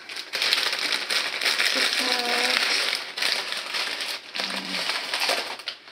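Clear plastic linguine package crinkling and rustling as dry pasta is pulled out of it by hand, with brief faint vocal sounds mixed in.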